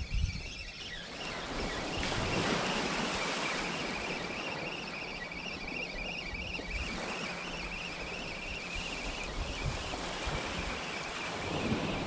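Wind buffeting the microphone over gentle surf on the shore, with a faint high warbling whistle through the middle.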